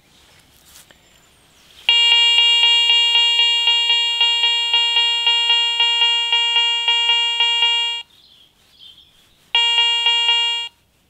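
Garrett ACE 400i metal detector with its standard coil sounding its target tone as a 5 Mark silver coin is passed over the coil: one long, buzzy beep of a single pitch lasting about six seconds with a slight flutter, then a second beep of about a second near the end, signalling a detected silver coin.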